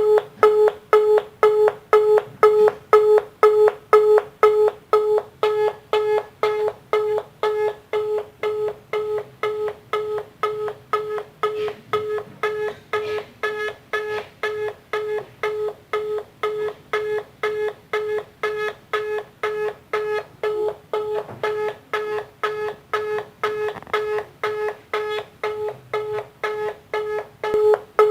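Telephone busy signal: short beeps at one low, steady pitch, repeating evenly about two and a half times a second, meaning the line is engaged.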